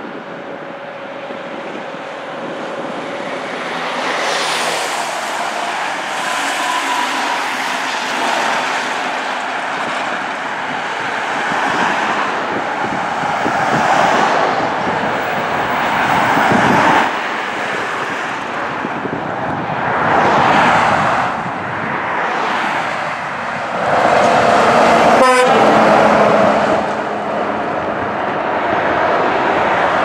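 Road traffic going by: a string of cars and trucks pass one after another, their tyre and engine noise swelling and fading with each pass, the loudest pass coming about three-quarters of the way through.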